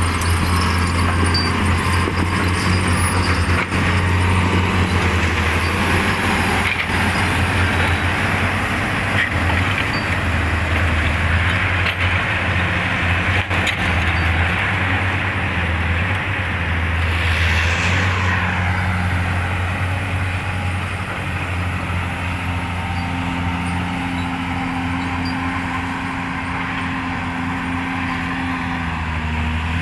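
Diesel engine of heavy earthmoving machinery, a wheel loader or excavator, running steadily with a low drone. A brief hiss rises and fades about seventeen seconds in.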